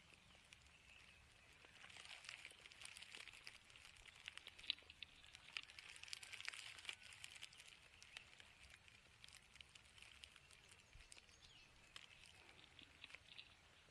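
Near silence: faint outdoor ambience with a soft hiss and light scattered clicks and crackles.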